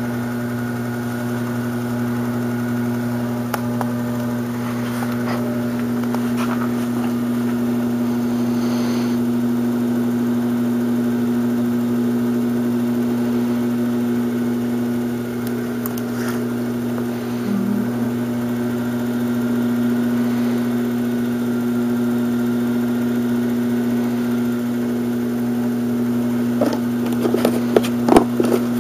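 Pottery wheel motor running with a steady hum while the wheel spins. A few short knocks near the end.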